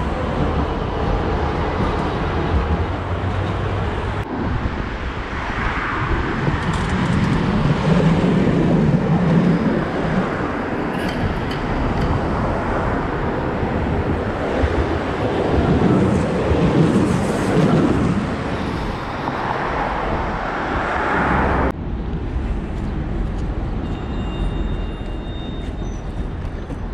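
Trams and cars passing along a city street: a steady rumble of wheels and road noise that swells twice as vehicles go by and changes suddenly twice.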